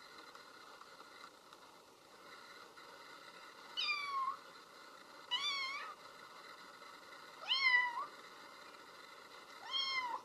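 A kitten meows four times, short high-pitched calls about two seconds apart, over a faint steady hiss.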